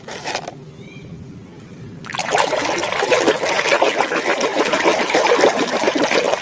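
Water starts running and splashing about two seconds in, steady and dense, as a muddy plastic toy animal is rinsed clean.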